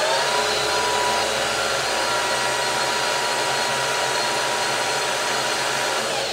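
Precision Matthews PM-1440GT lathe spindle running forward at 1350 RPM, belt-driven by a new Marathon E470 3 hp three-phase motor on a Hitachi WJ200 VFD. It finishes spinning up right at the start, then runs steadily with several steady whining tones, smooth and free of cogging or rattling.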